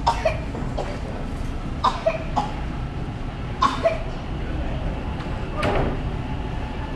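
Low, steady rumble of a TTC subway train approaching through the tunnel, heard in the station's echo. Several short, sharp sounds break through it, some in quick pairs.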